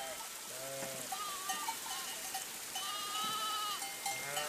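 A flock of sheep bleating, several separate calls overlapping, one held longer about three seconds in, over a steady hiss.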